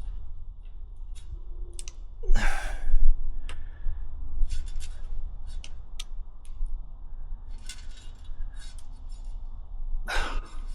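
Small clicks and plastic rattles of hands working motorcycle turn-signal wiring connectors in a tight space, over a low steady rumble. A short breathy rush comes about two seconds in and another near the end.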